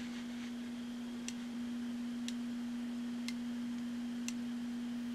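A steady single-pitched hum, with faint sharp ticks about once a second.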